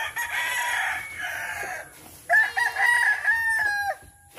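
A rooster crowing twice, each crow about a second and a half long, the second ending in a falling note.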